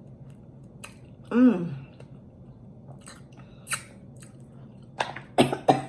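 Close-up eating sounds of a person chewing chicken: wet mouth clicks and smacks, with a short voiced 'mm' about one and a half seconds in and a cluster of sharper smacks near the end.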